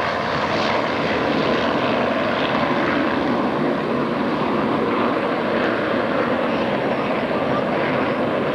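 Engine noise of an F-14 Tomcat's twin jet engines together with an F7F Tigercat's twin radial piston engines as the pair take off and climb away in formation, a steady continuous roar.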